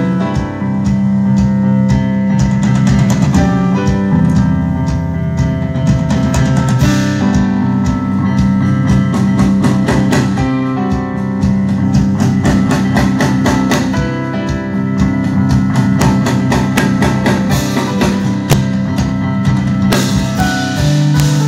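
Live instrumental math rock band playing, led by a drum kit with fast, busy hits over held bass notes and a keyboard line, heard as an audience recording in a concert hall.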